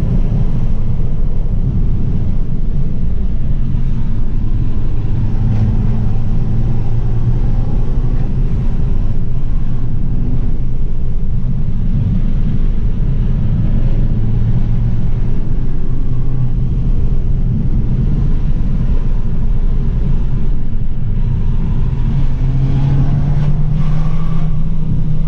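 Abarth 695 70th Anniversario's 1.4-litre turbocharged four-cylinder engine running with road noise, heard from inside the cabin at highway speed. The engine note holds steady, then rises a little near the end.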